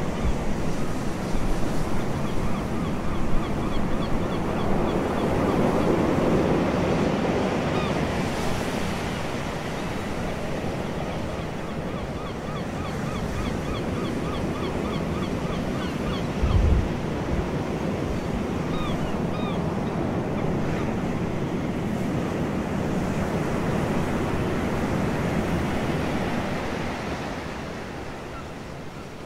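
Ocean surf washing onto a beach, with wind buffeting the microphone. Faint runs of short high chirps come and go, and there is a brief low thump about 17 seconds in; the surf drops in level near the end.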